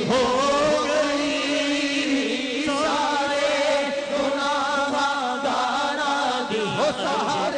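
Unaccompanied male voices chanting an Urdu naat (Islamic devotional poem), drawn out in long wavering melodic lines with no instruments or beat.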